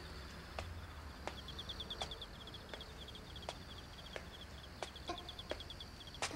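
Crickets chirping in fast, high trills, with a steady tread of footsteps, one sharp step about every 0.7 s.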